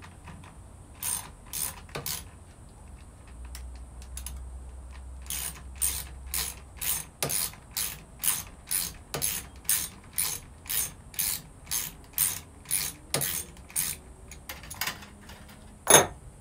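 Sharp mechanical clicks from hand work on an electric chainsaw: three clicks about a second in, then a steady run of about two clicks a second, and one loud click near the end.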